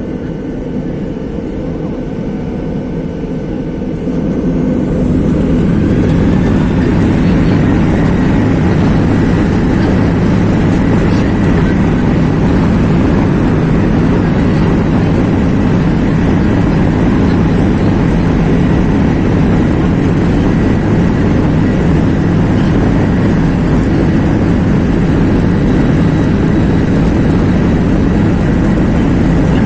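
Jet airliner's engines heard inside the passenger cabin, spooling up to takeoff power: a rising whine about four to six seconds in, then a loud steady roar with deep rumble.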